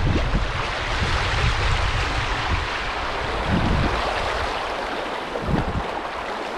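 Shallow river riffle rushing and splashing around a kayak as it is paddled through, with a few paddle-blade splashes. Wind buffets the microphone with a low rumble in the first second or two.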